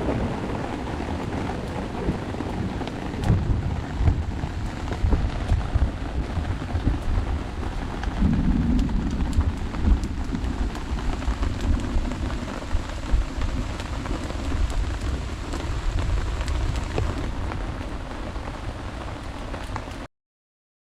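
Heavy rain falling in a thunderstorm, with a low rumble of thunder underneath and scattered sharp drop ticks; it cuts off abruptly near the end.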